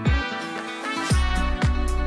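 Background music with a steady beat of about two kick-drum strikes a second; the beat and bass drop out briefly near the start and come back about a second in.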